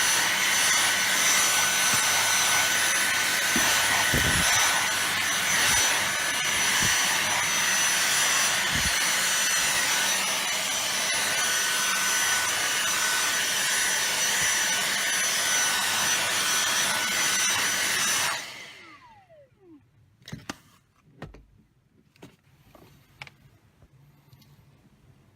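Dyson V6 Fluffy cordless vacuum cleaner running: a steady rush of air with a high whine on top. About eighteen seconds in it is switched off, and the motor's whine falls away as it spins down, followed by a few faint clicks and knocks.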